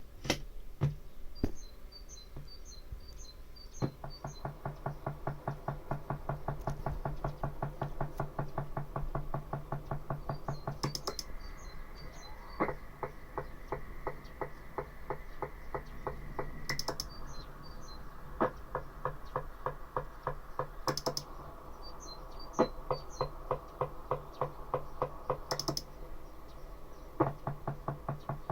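uSDX homebrew transceiver producing a strange knocking: a fast, even train of clicks over a steady hum, which the builder links to encoder contact bounce.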